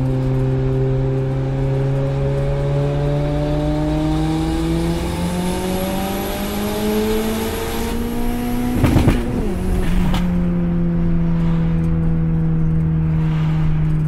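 Turbocharged Tofaş Doğan's four-cylinder engine heard from inside the cabin, pulling in gear with its pitch rising slowly, and a thin high whistle joins in over the second half. About nine seconds in, a short rattling burst and a drop in pitch mark an upshift, after which the engine runs on at steady revs.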